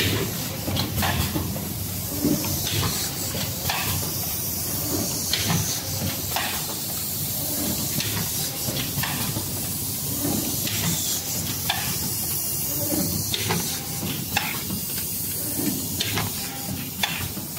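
Flat-plate blister packing machine running: a steady hiss with sharp mechanical clacks repeating about once a second as its forming, sealing and punching stations cycle.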